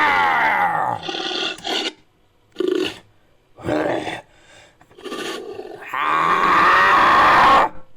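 Made-up creature sound effects: a series of about five roars and grunts with short gaps between them, the first falling in pitch and the last the longest and loudest.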